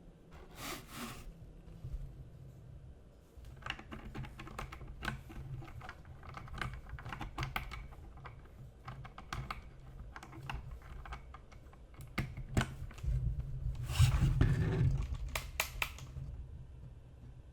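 Typing on a Logitech G Pro X mechanical keyboard with GX Brown tactile switches: irregular key clacks, a short flurry at first and then steady typing from a few seconds in, growing fastest and loudest a couple of seconds before the end.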